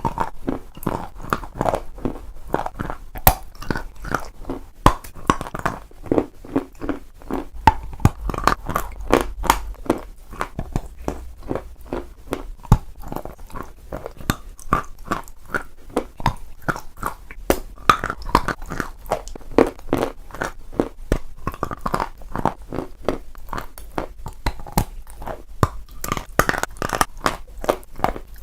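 Close-miked ASMR eating of crunchy chalk with a creamy paste: a dense, irregular run of sharp crunches and chewing, several a second.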